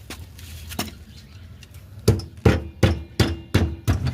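A run of six sharp metallic knocks, about three a second, each with a short ring, starting about two seconds in after a single faint click. They come from metal striking metal at the scooter's rear brake drum.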